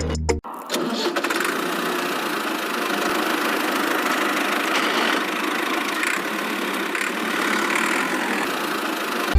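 A small motor or engine running steadily, an even mechanical noise with little bass.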